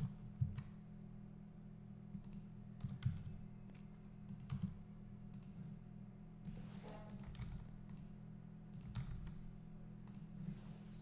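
Scattered computer mouse clicks and key presses, irregular and a second or two apart, over a steady low hum.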